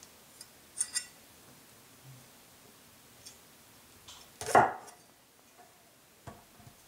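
Steel kitchen knife and cleaver knocking and scraping on a wooden cutting board while a green chile is cut: two sharp clicks about a second in, a few light ticks, then one louder, longer clatter of the blade about two-thirds of the way through.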